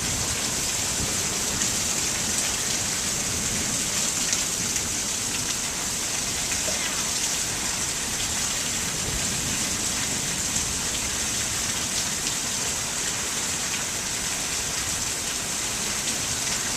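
Heavy monsoon rain pouring steadily on the ground and surfaces around, an even unbroken downpour.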